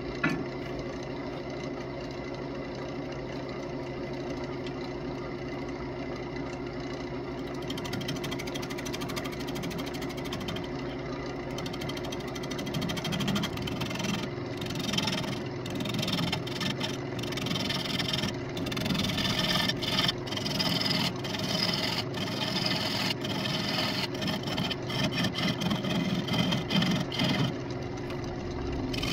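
Wood lathe motor running with a steady hum as a walnut crotch bowl blank spins. From about twelve seconds in, a turning tool cuts into the spinning walnut, adding an uneven cutting noise that comes and goes as chips fly.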